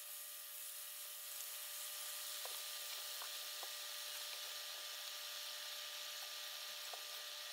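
Marinated chicken breasts sizzling in a skillet: a steady hiss with scattered faint pops as the meat releases its juices into the pan.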